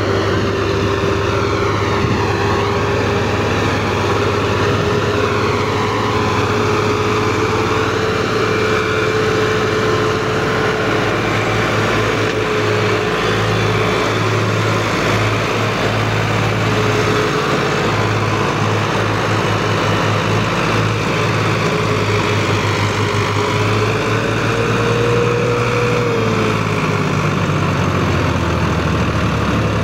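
Tractor engine running steadily at a loud, even drone while a tow is being rigged to pull a vehicle up a slope; near the end its note rises briefly and then drops back.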